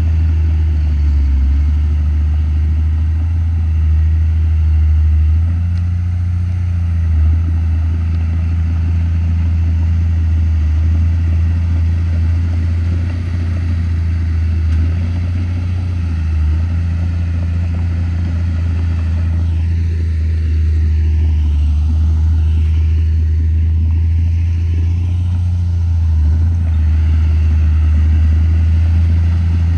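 Diesel engine of a Komatsu D31P crawler bulldozer running steadily under load, a loud low drone that rises and falls slightly as it works.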